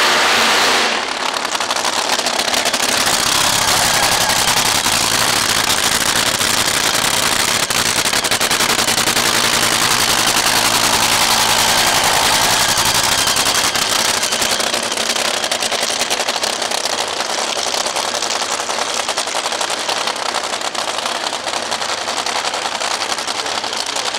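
Top Fuel dragster's supercharged nitromethane V8 running, a loud, rapid crackling rattle of firing pulses. It is loudest in the first second.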